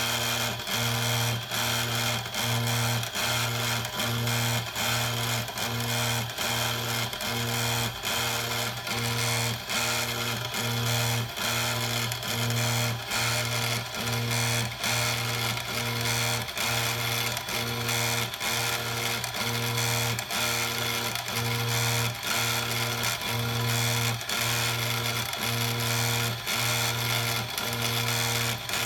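CNC engraving machine working a photo into granite with its stylus: a steady electric hum broken by short dips about twice a second, over fast, fine ticking.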